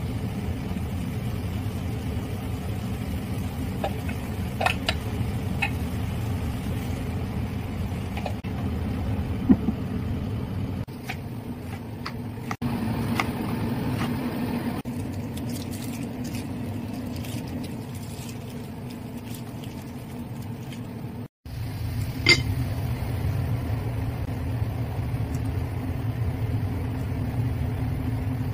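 Steady low hum of a kitchen range hood fan at the stove, with light clinks of a spatula and bowl against a wok. In the middle the hum drops and a kitchen knife taps repeatedly through cucumber onto a plastic cutting board. Then the stove-side hum returns.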